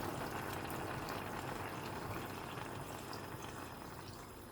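Water being poured into a pan of soup, running steadily and then gradually tailing off.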